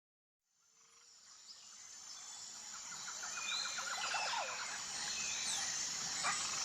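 Jungle ambience fading in after a second or so of silence: a steady high insect drone with birds chirping over it, and a quick bird trill about three seconds in.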